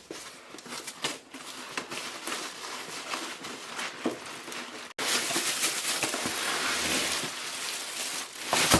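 Packaging crinkling and rustling as parts are handled, with scattered small clicks and knocks. About five seconds in it cuts abruptly to louder, denser crinkling.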